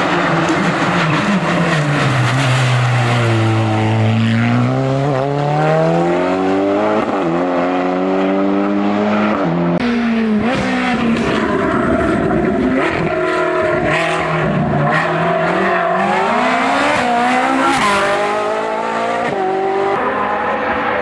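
Hill-climb race car engine. The engine revs drop to a low point a few seconds in, then climb hard through a series of gear changes, the pitch breaking and rising again at each shift, and keeps rising and falling as the car accelerates up the course.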